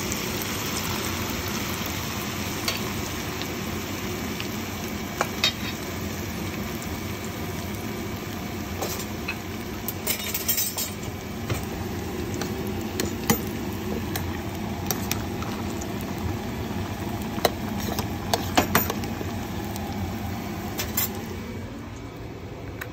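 Fish pakora frying in hot oil with a steady sizzle, while a metal utensil clinks against the pan at irregular moments.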